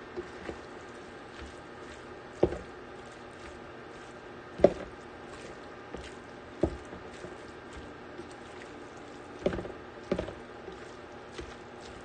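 Spatula stirring chicken and chorizo in a stainless steel skillet, scraping the pan over a faint steady hiss, with about five sharp knocks of the spatula against the pan a couple of seconds apart.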